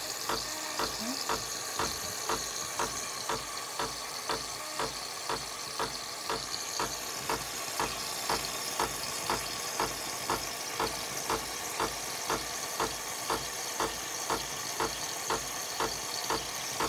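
Espresso machine running while it dispenses coffee, its pump pulsing evenly about twice a second over a steady hiss.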